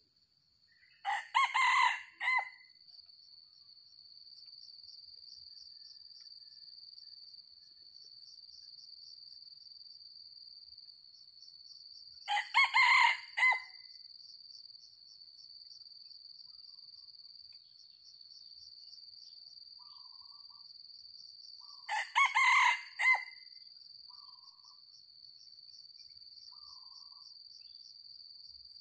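Red junglefowl cock crowing three times, about ten seconds apart, each crow short and clipped. A steady high insect drone runs underneath, and a few faint short calls come after the last crow.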